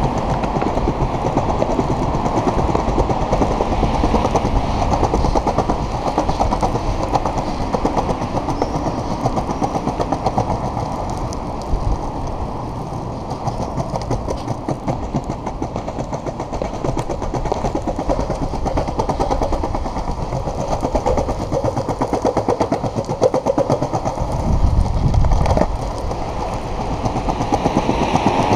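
Globe Big Blazer cruiser skateboard rolling over paving slabs: a steady wheel rumble with quick clacks as the wheels cross the slab joints, getting louder and deeper near the end.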